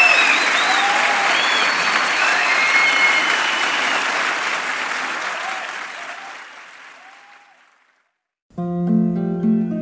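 Audience applause with scattered cheers, fading away over several seconds into a moment of silence. About eight and a half seconds in, an acoustic guitar starts playing.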